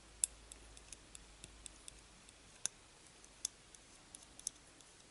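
Faint, irregular light clicks and ticks from handling a small plastic pinch-roller bracket and a toothpick while oil is dabbed onto the bracket's metal pin.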